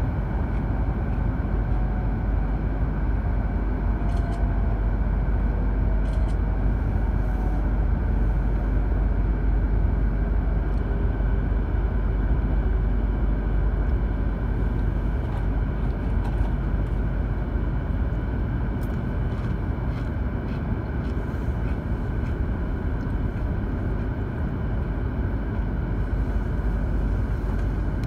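Inside the cabin of an E2-series Shinkansen train slowing into a station: a steady low rumble of wheels and rushing air, with a faint whine falling in pitch over the first ten seconds or so.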